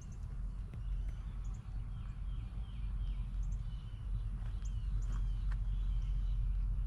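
Songbirds singing: a run of short, falling chirps repeated over and over, over a steady low rumble.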